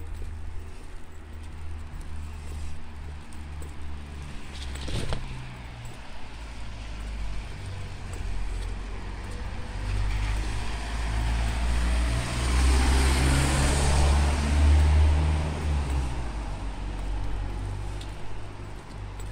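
A car passing on a wet street: tyre hiss swelling and fading, loudest about two-thirds of the way through, over a steady low rumble. A single knock about five seconds in.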